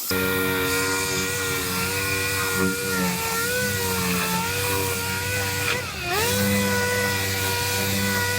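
High-speed grinder spinning with a steady whine. About six seconds in its pitch dips sharply and recovers as it is pressed against the sheet metal.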